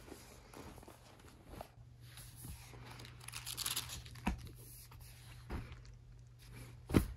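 Rustling and handling: a spiral-bound notebook drawn from a denim tote bag and turned over in the hand, with a few light knocks and one sharper knock near the end.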